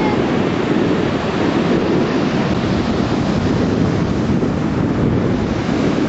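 Steady rush of small waves breaking on a sandy shore, mixed with wind buffeting the camera microphone.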